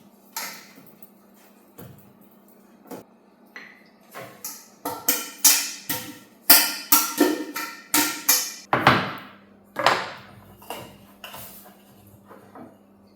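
Dishes and kitchen utensils being handled: a run of knocks and clinks with short ringing, coming thick and fast in the middle, with a faint steady hum underneath.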